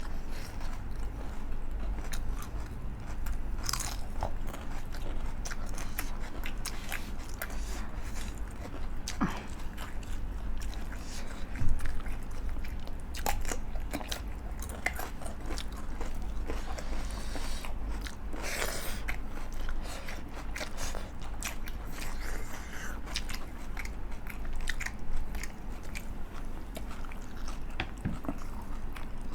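Close-up mukbang eating sounds of a home-cooked meal of rice and chicken curry: chewing, with scattered crunches and mouth clicks over a low steady hum. The loudest crunches come about twelve seconds in and near nineteen seconds.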